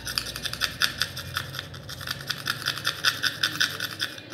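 Rapid back-and-forth scrubbing on the keypad contacts of a button phone's circuit board, about seven strokes a second. The contacts are wet with cleaning liquid, and the scrubbing takes off the grime that keeps the keys from working.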